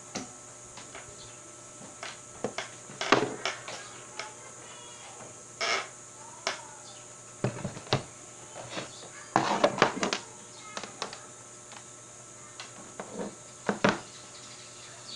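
Irregular clicks, taps and light knocks as multimeter probes and a DVD player's power-supply board are handled on a workbench, with a few louder bunches of clatter.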